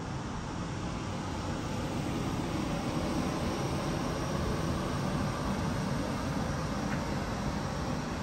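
Steady low rumble of distant engine noise, growing louder over the first three seconds and then holding.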